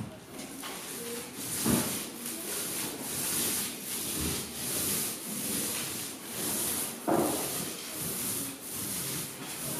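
Paint roller on an extension pole rolling over a wall in repeated strokes, a rhythmic swish that swells and fades with each pass, with a couple of sharper knocks along the way.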